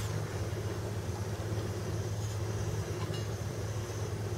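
A steady low engine drone with an even hiss over it, holding level throughout.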